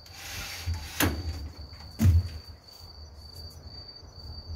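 Cricket chirring in one steady high tone, with a brief rustle at the start and two sharp knocks about one and two seconds in, the second louder.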